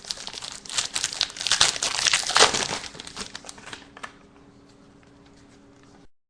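Crinkling and tearing of a foil trading-card pack wrapper being ripped open, dense and crackly for about four seconds and loudest halfway through, then dying away to a faint hum.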